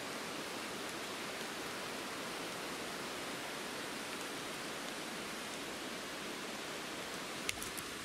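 Steady rush of mountain-stream water heard from out of sight, an even hiss with nothing standing out of it. One sharp click near the end.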